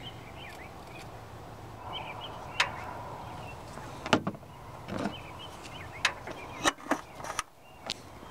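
Plastic power steering fluid bottle and reservoir cap handled under the hood while the reservoir is topped off: a scatter of sharp clicks and light knocks over a steady low hum.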